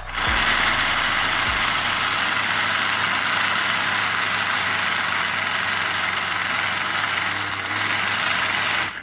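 A small motor running steadily and loudly. It starts abruptly and cuts off after about nine seconds.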